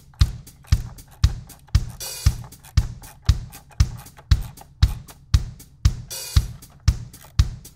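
Background music with a steady drum-kit beat, about two kick-drum hits a second.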